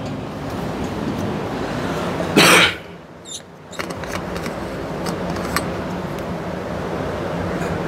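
Steady background hum of a room with a fan running, broken by one short, loud cough about two and a half seconds in, followed by a few light clicks.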